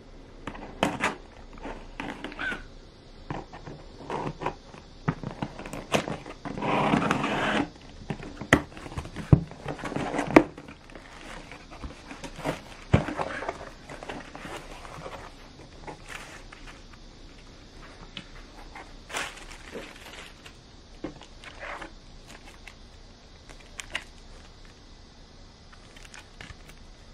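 Cardboard shipping box being cut open and unpacked by hand: scissors on the packing tape, then the flaps and cardboard inserts scraping and rustling, with sharp clicks and taps. A longer scraping rustle comes about seven seconds in, and the handling grows quieter in the second half.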